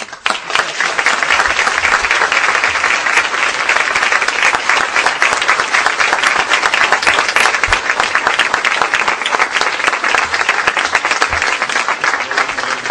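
Audience breaking into loud, steady applause, a dense clatter of many hands clapping that starts suddenly and keeps up without a break.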